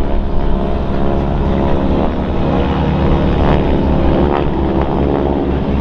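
Radial engine and propeller of a vintage single-engine warbird, a T-6 trainer modified into a Kate torpedo bomber replica, droning steadily and loudly as it passes.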